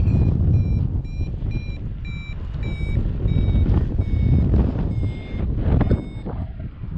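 Paragliding variometer beeping its climb tone, the short beeps growing sparser and dropping in pitch until they stop about six seconds in: the lift is weakening. Wind rushes over the microphone throughout.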